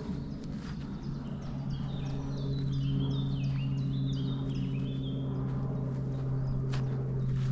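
Footsteps on a forest trail at a steady walking pace, while a songbird sings a quick run of high notes, each sliding down in pitch, for about three seconds in the middle. A steady low hum runs underneath.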